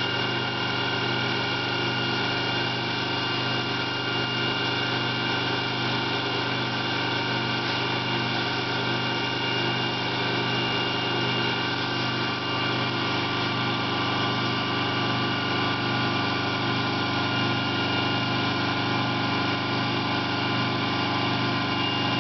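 Vacuum pumping system (rotary pump) running steadily, a constant hum with several held tones, keeping the quartz ampoule under vacuum while it is sealed. The hiss of an LPG–oxygen torch flame runs with it.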